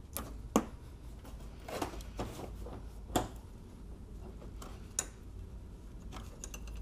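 Sharp plastic clicks and knocks from wiring connectors being unplugged and a car's plastic front bumper cover being handled: a handful of separate clicks, the loudest about half a second in and about three seconds in.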